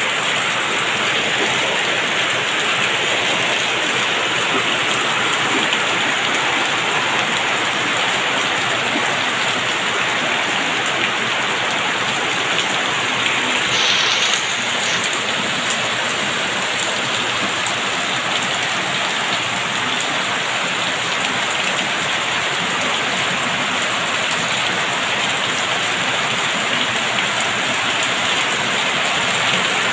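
Heavy rain pouring steadily, a dense even hiss of falling water, briefly a little louder about halfway through.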